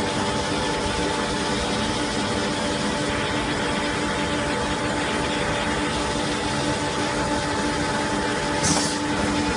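Industrial liquid filling machine for glass cleaner running, a steady machine hum with constant droning tones. A short hiss comes near the end.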